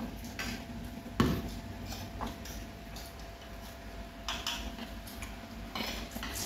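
Chopsticks clicking and scraping against bowls and plates as people eat: a few light, irregular clinks.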